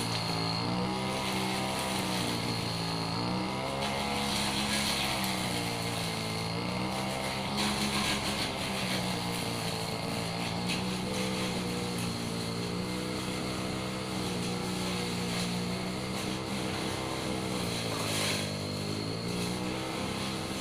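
Petrol brush cutter engine running at high speed while cutting a hedge. Its pitch dips briefly twice, about four seconds in and near the end.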